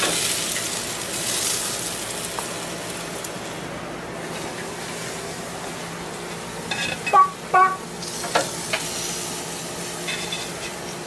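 Sauce-basted chicken sizzling on hot grill grates, a steady hiss. A few short sharp sounds cut in about seven to eight and a half seconds in.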